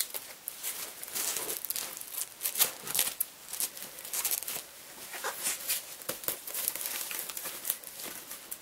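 Crinkling and rustling of plastic-covered cardboard and fabric as stiff cardboard panels are pushed down between the fabric layers of a sewn bag. The sound comes in many short, irregular scrapes and crackles.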